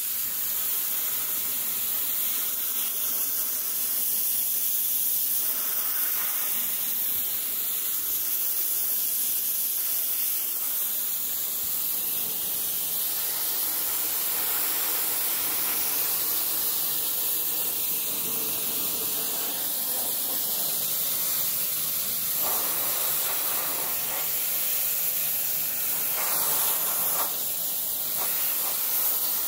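Compressed-air spray gun spraying a fine mist of paint thinner over an engine block: a steady hiss of escaping air that swells a little now and then.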